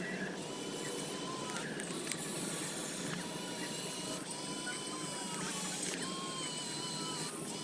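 Small electric motor and gearbox of a radio-controlled model truck running steadily, with a thin wavering whine over a mechanical hiss.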